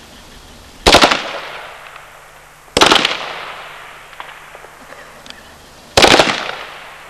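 Assault rifles fired on automatic in three short bursts of a few rounds each, about a second in, about three seconds in and near the end, each burst followed by a fading echo across the range.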